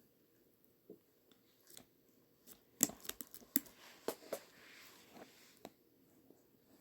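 A string of sharp clicks and taps in a small room, bunched together between about three and four and a half seconds in, with a few fainter ones before and after.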